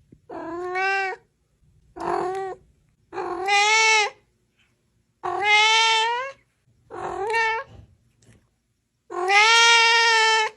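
A cat meowing six times in a row: drawn-out, pitched meows with short pauses between them, the last one the longest and loudest.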